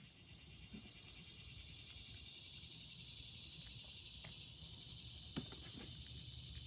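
A steady high-pitched hiss fades in over the first couple of seconds and holds. A few light clicks sit on top of it, from small metal parts of a phonograph lid-support piston being turned in the hands.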